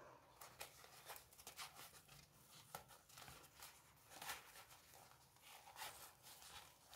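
Faint handling sounds: soft rustling and small scattered clicks as a stainless steel link watch bracelet is worked around a fabric watch cushion.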